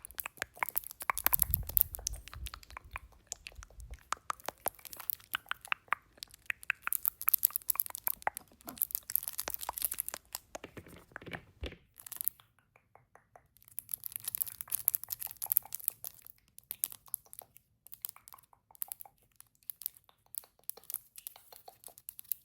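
Close-miked ASMR makeup sounds: many rapid clicks and taps mixed with crinkling, scratchy rustling, layered over one another, with a short lull about halfway through.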